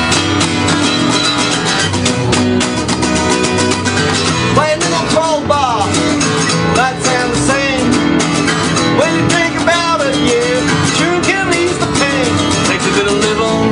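Live acoustic blues: a guitar playing steadily, with a harmonica playing bent, sliding notes over it from about four and a half seconds in.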